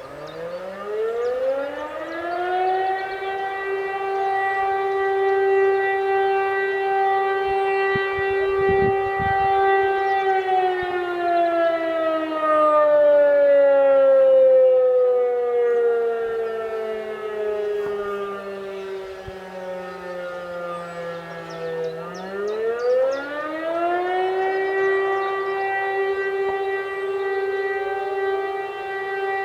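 Several motor sirens sound the Feueralarm test signal. The DS977 fire-station siren winds up from a standstill and holds its tone for about ten seconds. It then slowly winds down and starts up again a little after twenty seconds, while another siren holds a steady tone underneath throughout.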